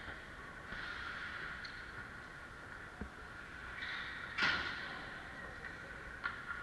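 Hockey skates hissing and scraping on the ice, with a few sharp clacks, the loudest about four and a half seconds in.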